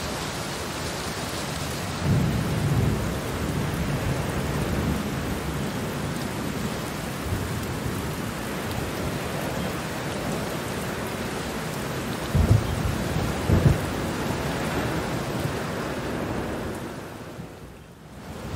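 Steady rain in a thunderstorm, with a low roll of thunder about two seconds in and two sharper thunderclaps a little past the middle. The rain fades down briefly near the end.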